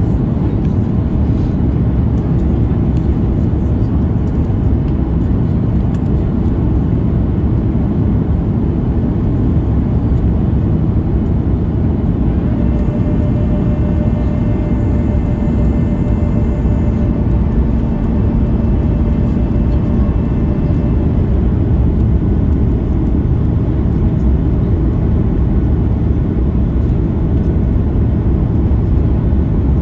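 Cabin noise inside a Boeing 737 MAX 8 during its descent: a steady rush of airflow and the CFM LEAP-1B engines, heavy in the low end. A faint whining tone joins for several seconds about halfway through.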